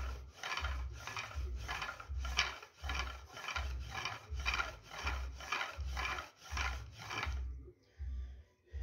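Wooden pump drill spindle grinding into a wooden fire board in rhythmic rasping strokes, about two a second, each with a low thud; the strokes stop about seven seconds in. This is friction fire-making: the board is smoking as the drill works up an ember.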